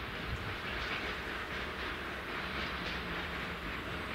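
A train running on the track: a steady rumble and rattle of wheels on rails, with faint irregular clicks.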